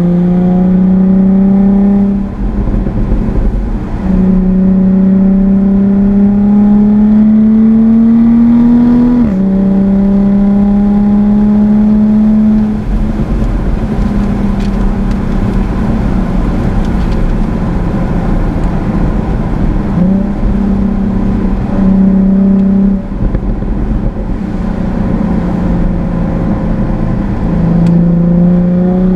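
Jaguar F-Type's engine pulling hard under load, with road and tyre noise. Its note climbs slowly in pitch and then drops sharply at each gear change, about four times.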